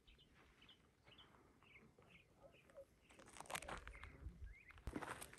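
Birds calling faintly with short, repeated chirps; about three seconds in, a hiker's footsteps on the trail begin and grow louder.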